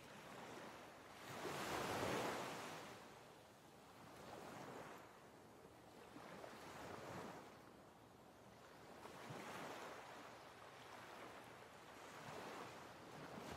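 Rushing noise that swells and fades every two to three seconds, with the strongest swell about two seconds in.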